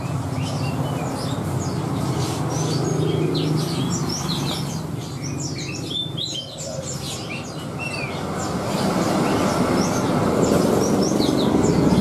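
Many caged songbirds chirping in short, rapid calls, over a steady low rumble.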